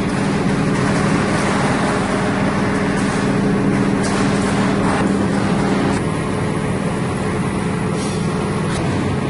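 Large press brake bending a thick steel plate, its machinery running with a steady hum over loud workshop noise; slightly quieter after about six seconds.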